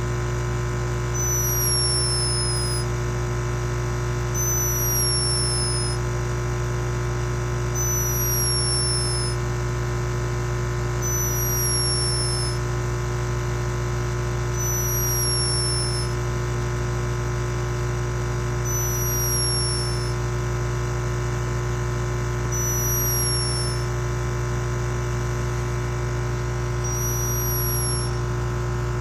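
A sleeping hummingbird snoring: a thin, high whistling squeak that falls slightly in pitch, eight times at intervals of three to four seconds, each lasting about a second and a half. A steady electrical hum runs underneath.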